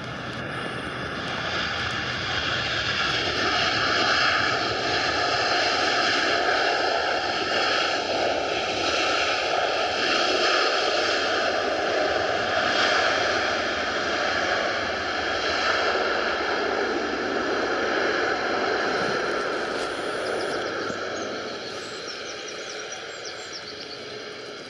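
Jet airliner's engines on landing: a steady roar with a whine in it, swelling over the first few seconds, holding, then fading away near the end.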